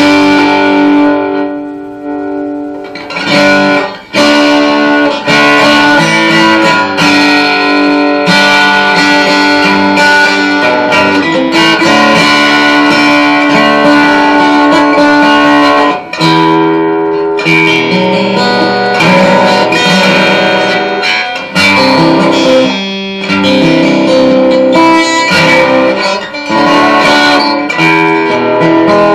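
Martin acoustic guitar with a Carlos under-saddle piezo pickup, played through a small amp on one of its built-in presets: chords and notes ringing out, with a few short breaks. The pickup's output sounds even across all the strings.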